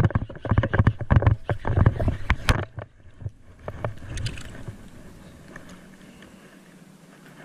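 A hooked largemouth bass being fought and pulled in from a surface weed mat: a quick run of splashes, knocks and rustling, loudest over the first three seconds. Then it eases off to a few faint clicks over a low steady hum.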